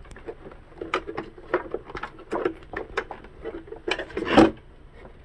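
Hands handling electronics and wires inside a carbon fiber RC boat hull: a string of small clicks, knocks and rubbing, with a louder clatter about four seconds in.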